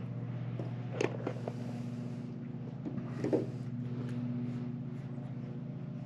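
Steady hum of an engine running, with a couple of light metallic clinks of nails being handled, about one second and about three seconds in.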